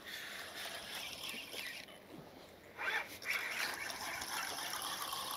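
Fishing reel being wound in, a zipper-like whirring in two spells: one of about two seconds, then another starting just before the three-second mark. The rig is being retrieved from the seabed against the tide.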